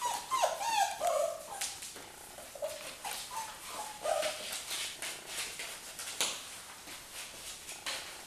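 Australian Labradoodle puppies whimpering and yipping in short, bending cries, mostly in the first half, among scattered light clicks and scuffles of play on a wooden floor.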